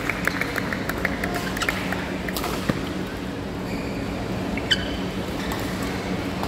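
Indoor badminton hall ambience: a steady low hum under scattered quick clicks and squeaks of shoes and shuttles on the courts, with one sharp squeak a little under five seconds in.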